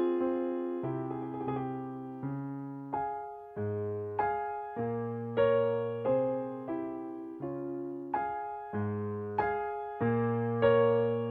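Slow, gentle piano music, with notes and chords struck about every two-thirds of a second, each dying away before the next.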